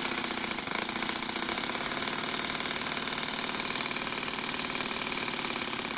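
Toyan FS-S100 single-cylinder four-stroke overhead-cam glow engine running steadily at idle.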